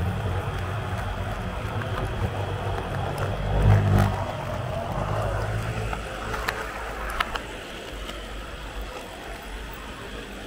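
HO-scale model train running along its track: the small electric motor whirring and the wheels rumbling on the rails, louder briefly about four seconds in, with a few sharp clicks about six and seven seconds in, then gradually quieter.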